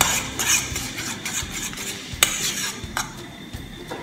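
Spoon stirring and scraping through a thick cream sauce in a stainless steel sauté pan, in repeated short strokes, with one sharp clink about two seconds in.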